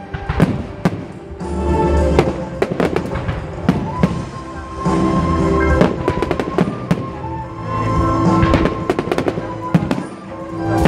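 Aerial firework shells bursting in a rapid run of bangs and crackles, over music with long held notes playing throughout.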